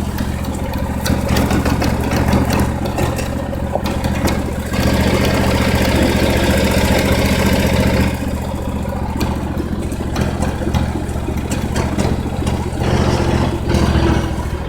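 Kawasaki engine of a Hustler riding mower running at low speed under way. The note gets louder about five seconds in and drops back around eight seconds, with scattered clicks and rattles.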